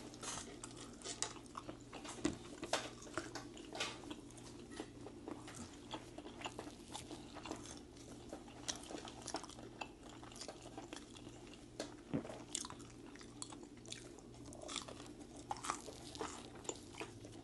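Close-up chewing: a person biting and crunching crisp fried naem (Thai fermented pork and chicken wings fried with garlic and chilies), with many small sharp crunches over a faint steady hum.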